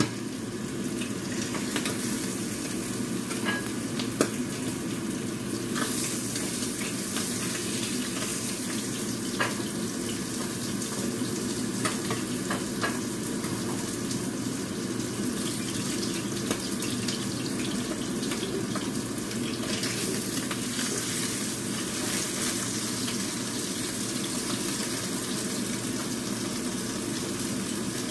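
Oil sizzling steadily in frying pans as a Korean green-onion pancake with squid fries, with a few light clicks of a spatula, the sharpest about four seconds in.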